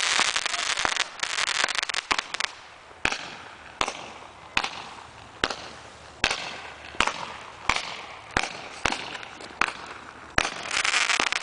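A consumer grand finale fireworks cake firing shot after shot. It opens with a dense crackle, then gives sharp bangs about one every 0.8 seconds, and near the end breaks into crackling again.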